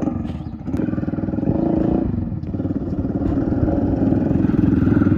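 Hero Honda CD 100 SS single-cylinder four-stroke motorcycle engine running through a fitted Yamaha RX 100 silencer, giving a loud exhaust note with a fast, even beat of pulses. The note gets louder about a second in.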